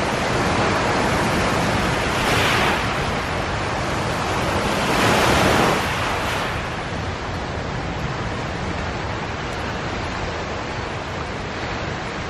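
Small waves breaking and washing up a gravelly beach, with two louder washes about two and five seconds in.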